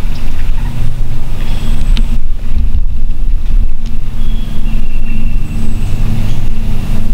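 Loud, steady low rumble, with a few faint, brief high chirps over it.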